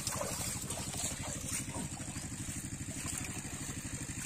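A small engine running steadily with an even, fast chugging pulse, under a steady high hiss.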